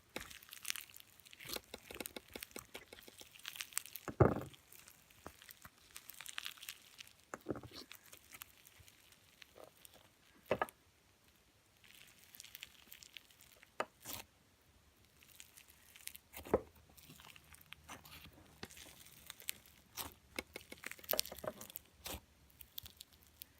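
Clear slime with rice mixed into it being squeezed and stretched by hand, crackling and popping irregularly, with a louder pop about four seconds in.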